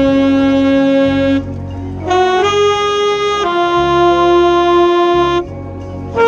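Alto saxophone played right at the microphone, holding long notes that step up and down in pitch, with two short breaks, over the rest of the marching band.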